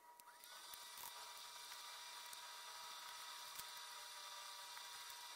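Near silence: a faint steady hiss with a faint tone underneath, and a couple of faint clicks.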